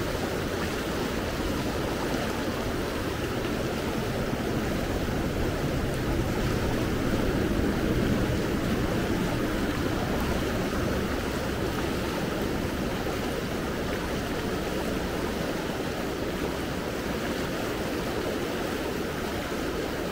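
Steady rush of the Gallatin River's fast current flowing around the wading angler.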